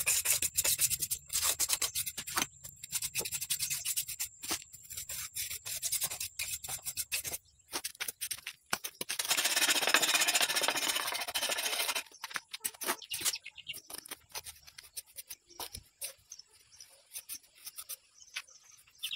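Small hand trowel scraping and smoothing wet cement packed over a mould, in quick repeated strokes.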